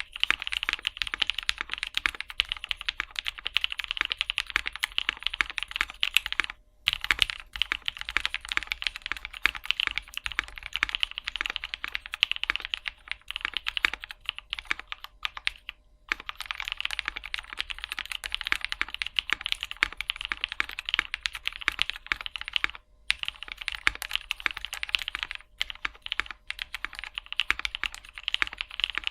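Fast typing on a Polaris 60% gasket-mount mechanical keyboard with lubed Novelkeys Cream linear switches on a polycarbonate plate. The strokes are dense and rapid, with no clicks or tactile bumps, and stop briefly a few times.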